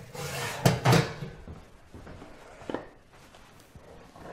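Kitchen clatter of metal baking trays handled with oven mitts: a burst of rattling with two sharp knocks in the first second, a small knock near three seconds, and a knock near the end as a tray of chicken wings is set down on a wooden chopping board.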